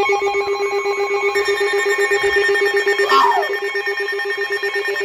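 Electronic alert tones from weather radio ahead of a new severe thunderstorm warning. A low tone buzzes with a very rapid pulse while several higher steady tones sound over it, and a short falling chirp comes about three seconds in. The low tone cuts off at the end.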